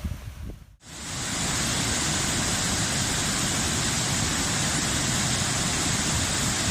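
A steady, even rushing hiss with no pitch or rhythm, of the kind heavy rain or falling water makes. It starts after a short silence about a second in, swells quickly and then holds level.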